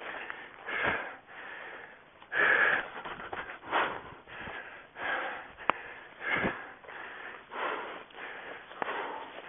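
A running orienteer's hard, rhythmic breathing, about one loud breath every second or so, mixed with the rustle of running through undergrowth. A single sharp click comes a little past halfway.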